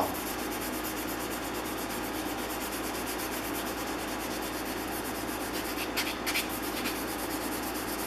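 A worn, fine sanding sponge rubbed by hand over the lacquered hardwood tote of a Stanley bench plane, a steady scuffing that levels the built-up lacquer coats short of smooth. A few brief, sharper scrapes come about six seconds in.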